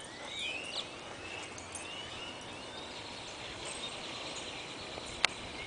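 Outdoor ambience of small birds chirping in short rising and falling notes over a steady high insect drone, with a single sharp click about five seconds in.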